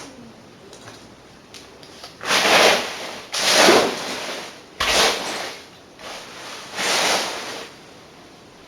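Four rough scraping strokes, each about a second long, the third starting with a sharp knock, from the clearing-up work.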